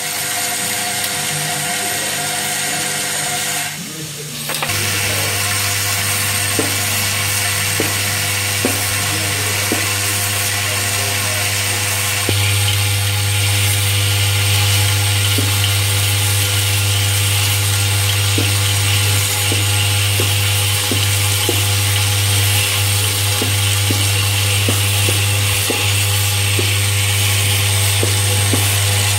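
Vibratory bowl feeder running with a steady low hum, metal M8 automotive clip nuts rattling as they travel round its spiral track, with light irregular clicks. The hum starts after a brief dip about five seconds in and grows louder about twelve seconds in.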